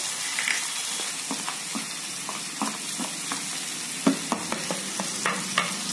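Green peas frying in oil in a kadhai: a steady sizzling hiss, with scattered light clicks and taps as ground spices are spooned in from a plate.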